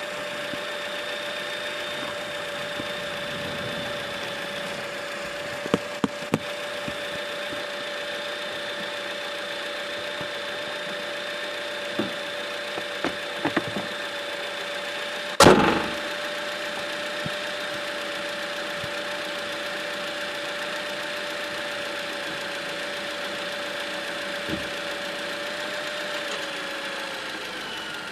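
A steady high whistle from under the hood of a 2008 Toyota Corolla with its engine running, dipping slightly in pitch near the end. A few light clicks and one loud sharp knock about halfway through.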